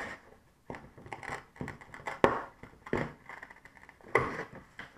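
Scissors snipping through a sheet of thin card along a marked line, about six separate snips.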